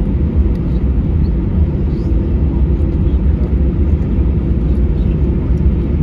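Steady low rumble inside the cabin of an Airbus A320 airliner, its engines running at idle as it taxis after landing.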